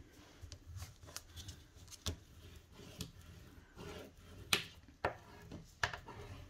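Sheet of patterned paper being pressed and smoothed down by hand onto cardstock on a wooden tabletop: soft rubbing and rustling of the paper, broken by a few short sharp taps and clicks, the loudest about four and a half and five seconds in.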